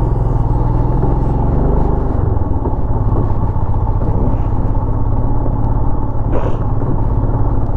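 Motorcycle engine running steadily under load as it climbs a steep, rocky dirt track, with the heavy rumble of the ride. There is one short, sharper noise about six seconds in.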